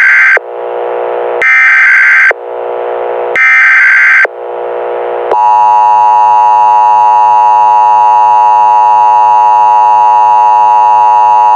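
Emergency Alert System header and attention signal: three loud bursts of data screech, each under a second and about two seconds apart, with a fainter noisy sound between them. About five seconds in, the steady two-tone EAS attention tone begins and holds. Together they announce an incoming emergency alert message.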